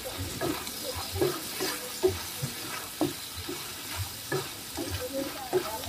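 Small crabs in their shells being stir-fried in a pan, a wooden spatula scraping and knocking them around about twice a second over the sizzling of the frying.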